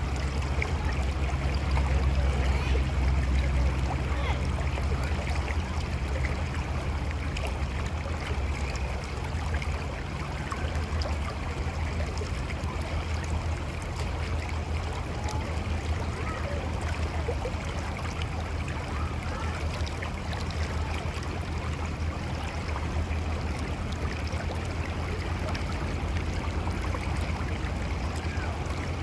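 Mountain river rushing and gurgling over rocks: a steady wash of water with a deep low rumble and small splashes, a little louder in the first few seconds.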